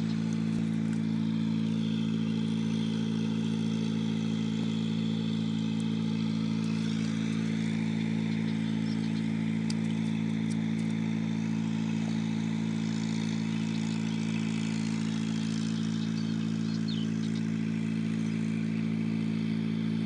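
A motor running steadily at a constant speed, a low unchanging drone.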